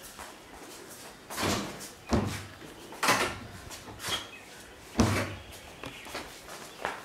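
Footsteps on a hard tiled floor, about one step a second, the loudest about five seconds in.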